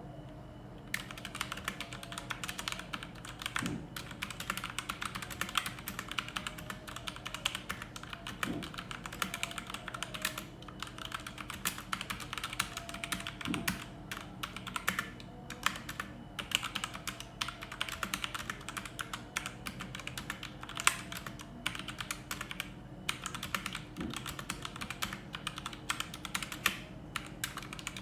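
Continuous fast typing on a mechanical keyboard with Outemu Black linear switches: dense, irregular key clacks that begin about a second in, broken by short pauses, with an occasional deeper thump. A steady low hum runs underneath.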